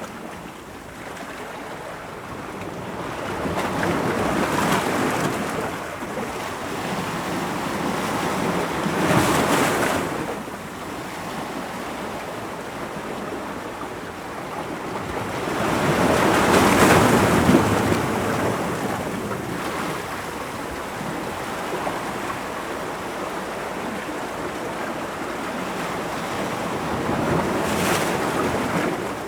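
Ocean waves breaking against rocks: a continuous surf wash that swells into louder surges every several seconds and then fades back.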